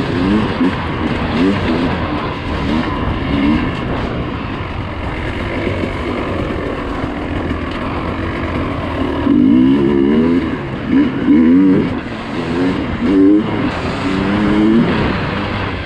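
Dirt bike engine revving up and down with the throttle while being ridden off-road, over a steady rushing noise. The pitch swings hardest in the first few seconds and again in the second half.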